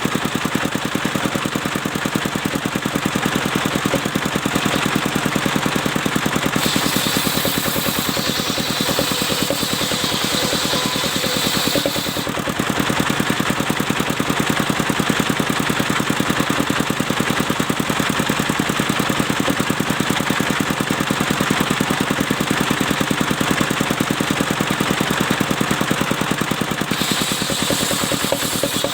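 Engine driving a mobile circular saw, running steadily with a fast, even beat. The saw blade cutting albasia wood adds a brighter hiss from about seven to twelve seconds in and again near the end.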